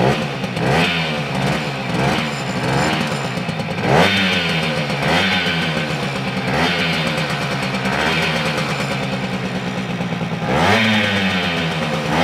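Garelli Tiger Cross moped's small two-stroke engine, freshly started on a little choke, running with repeated throttle blips; the pitch rises and falls about a dozen times, quickly at first, then in slower swells, with a bigger rev near the end.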